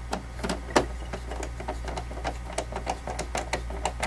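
Hand screwdriver driving a screw into the plastic case of a UPS: a run of irregular light clicks and ticks, over a steady low hum.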